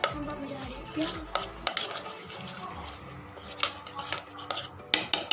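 A metal spoon stirring thick gram-flour pakora batter in a bowl, with irregular clinks and scrapes against the bowl and a quick run of knocks about five seconds in.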